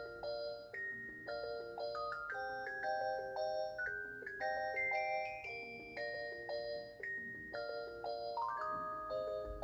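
Polyphonic ringtone melody playing from a Samsung SMT-W6370 home phone: a bell-like tune of short stepped notes over chords.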